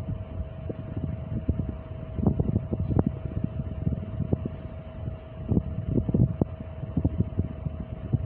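Fabric rustling and handling knocks as a map-print button-down shirt is moved about close to the phone, in irregular low thumps, over a steady thin hum.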